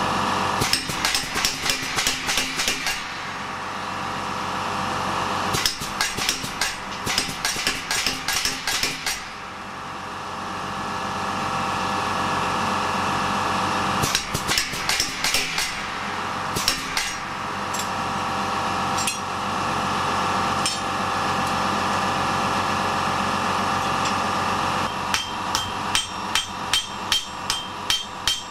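A home-built pneumatic power hammer with a 70 lb solid steel head strikes a red-hot steel bar in closed forging dies. It comes in four runs of rapid blows, about three a second, with pauses between them. A steady machine drone runs underneath.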